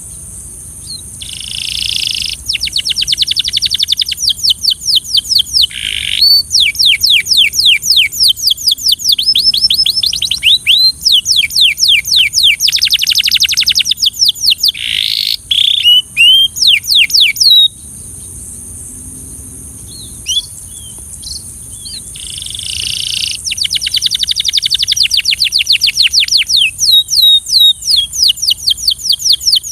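Belgian canary singing long rapid trills, rolls of quick falling notes repeated many times a second. It pauses for a few seconds with only short single calls, then starts another trill. A steady high-pitched hiss runs underneath.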